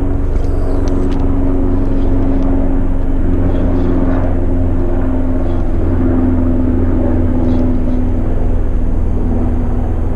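A loud, steady low engine drone with a humming tone that wavers slightly in pitch.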